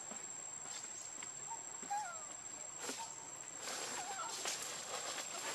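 Outdoor ambience: a steady high-pitched insect drone, with a few faint short chirps and scattered rustles.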